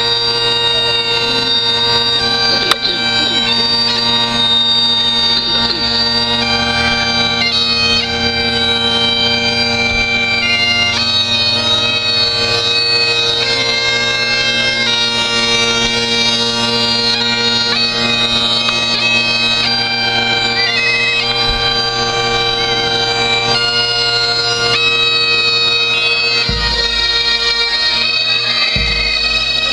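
A band of Highland bagpipes playing a tune over their steady drones, with a couple of low thuds near the end.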